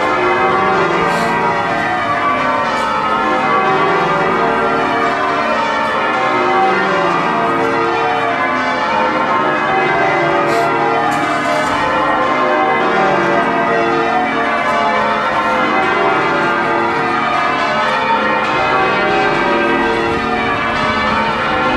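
York Minster's church bells change ringing: a continuous, steady tumble of many bells striking one after another in overlapping rounds.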